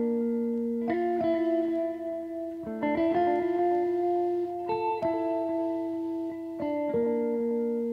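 Background music: guitar-like plucked chords held and changing every second or two.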